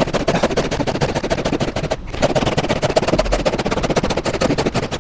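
Japanese replaceable-blade hand saw ripping a wooden board along the grain in a jig, the board pushed back and forth over the blade in a fast, continuous rasp of teeth in wood, with a brief break about two seconds in. The blade is a crosscut blade, which is slower for a rip cut than rip teeth.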